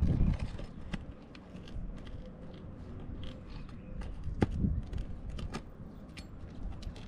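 Scattered small clicks and scrapes as roofing nails are worked loose from under 3-tab asphalt shingles. A low rumble sits under them at the start.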